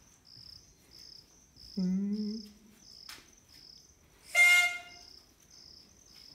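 A short, shrill whistle note sounds once, just past four seconds in. Under it runs steady insect chirping, a short high chirp about every two-thirds of a second, and about two seconds in a man's voice gives a brief wavering call.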